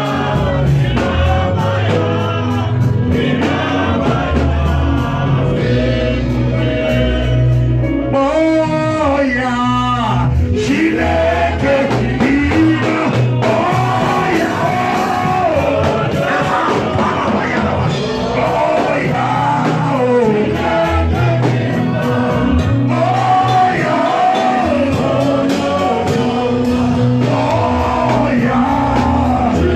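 Gospel worship singing with a band: sung melody lines over a sustained bass accompaniment.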